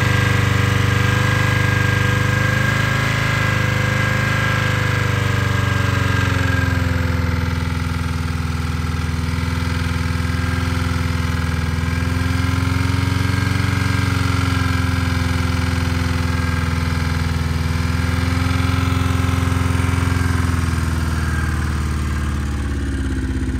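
Ford Fusion engine running unevenly on silicone caulking in place of oil, its speed slowly rising and falling, with a dip near the end.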